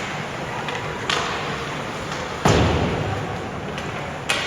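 Ice-hockey game sounds in a rink: a loud thud about two and a half seconds in that echoes around the arena, typical of the puck or a player hitting the boards. Sharper knocks of stick and puck come about a second in and near the end.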